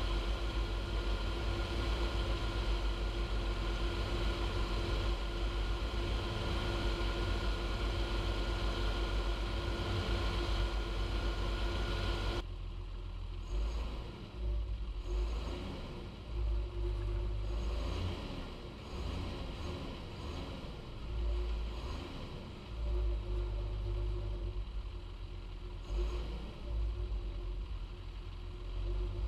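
John Deere 6930 tractor's six-cylinder diesel engine running at a steady speed with a constant hum, then, after an abrupt change about twelve seconds in, running with revs and loudness rising and falling unevenly.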